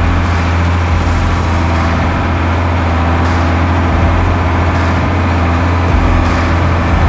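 Diesel engine of a 1983 Unimog U1700L ex-Army truck running steadily, a loud, even, deep drone.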